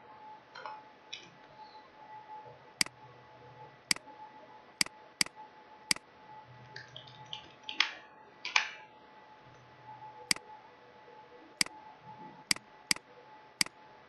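Sharp single clicks of a computer mouse and keyboard, about ten in all, in two groups of five a few seconds apart. Two louder breathy puffs come near the middle, over a faint steady hum.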